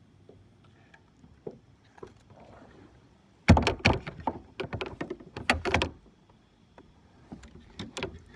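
A small bass thrashing at the side of a plastic kayak as it is landed: a quiet stretch, then about two and a half seconds of rapid, loud knocks, splashes and clatter, with a few scattered knocks near the end.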